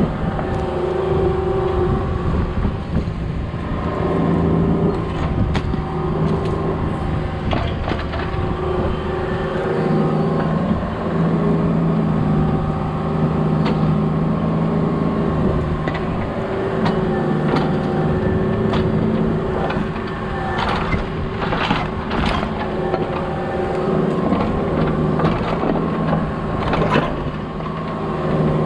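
Mini excavator's diesel engine running, its steady pitch swelling and easing every few seconds as the hydraulics take load. Several sharp knocks come near the end.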